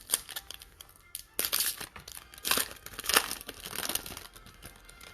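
Wrapper of a trading-card pack being torn open and crinkled in the hands, in several rustling bursts, the loudest from about a second and a half in to about four seconds.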